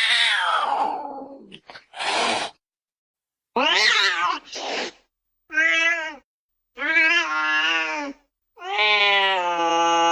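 Cat meowing: a series of separate meows, some short and some drawn out, with a brief breathy burst about two seconds in. A long, held meow starts near the end.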